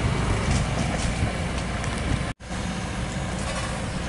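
Kobelco SK200 excavator's diesel engine running steadily with a low rumble. The sound drops out completely for a split second a little past halfway, then resumes.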